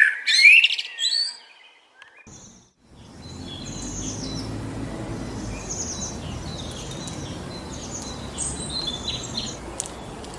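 A songbird singing loudly and close, a run of quick chirping phrases that stops about a second and a half in. After a short silence a steady rush of wind comes in, with faint, high bird chirps behind it.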